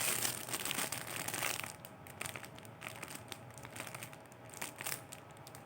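Faint handling noise: light rustling and small clicks, a little louder in the first second and a half, then fainter.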